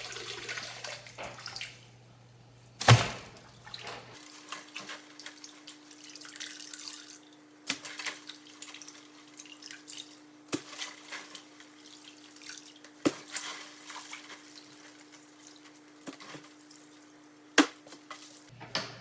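Water sloshing and dripping in a sink as wet roots and clay pebbles are lifted out, with one sharp knock about three seconds in and scattered drips and small clicks after it.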